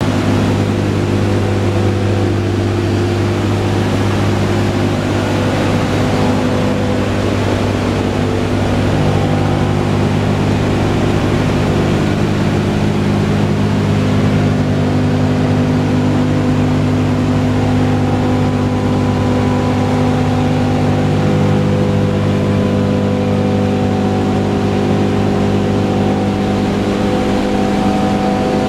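The B-17 Flying Fortress's four Wright R-1820 Cyclone radial engines running steadily, heard from inside the fuselage as a loud, unbroken low drone. Its several tones shift slightly in pitch against one another now and then.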